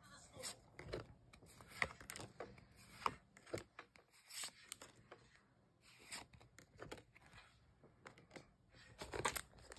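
Pokémon trading cards being flipped through and slid over one another by hand: quiet rubbing with irregular small clicks and slaps of card on card.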